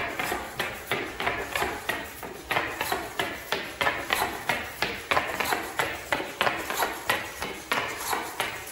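A SunFounder PiDog robot dog's legs stepping it round in a right turn, driven by metal-gear servos. Its feet tap on the tabletop in a quick, uneven run of about three taps a second.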